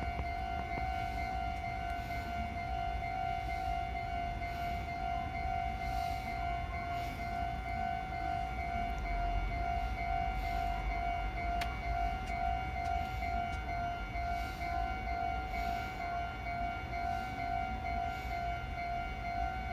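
Japanese railroad crossing's electronic warning bell ringing continuously, an even, repeating ding tone, over a low rumble.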